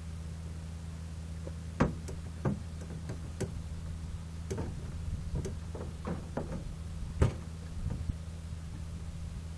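Scattered light clicks and knocks at irregular intervals over a steady low hum, the two loudest knocks about two seconds in and near the end.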